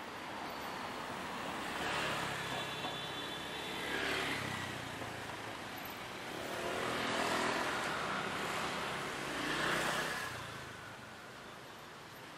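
Street traffic: about four motor vehicles pass one after another, each engine swelling and fading away.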